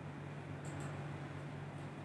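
Quiet room tone: a steady low hum with two faint short ticks about two-thirds of a second in.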